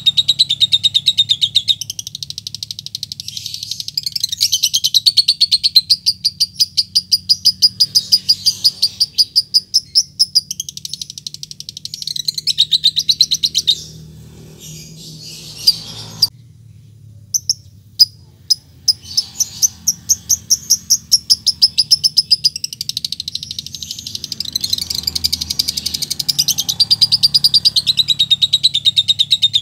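Fischer's lovebird calling to a rival with its long chattering song ('ngekek'): long runs of rapid, shrill, repeated notes, several a second. About halfway the song falters, with a brief dropout and a few sharp clicks, then picks up again.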